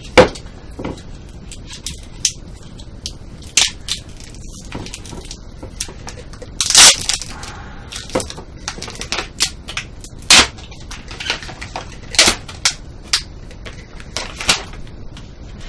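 The mould being pried and broken off a cured epoxy casting: a run of irregular sharp cracks and snaps, with one longer, louder crunch about seven seconds in.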